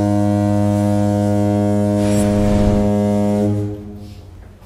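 A train horn sounding one long, steady low note that fades out near the end.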